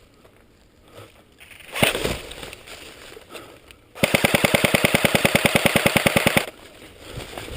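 Airsoft gun firing one full-auto burst of about two and a half seconds, starting about four seconds in, at roughly thirteen shots a second.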